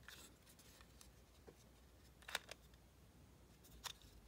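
Faint clicking of an Airis Turboon vape battery as its button is pressed and the spring-loaded cartridge holder pops out and clicks into place: two sharp clicks about a second and a half apart, with lighter handling ticks before them.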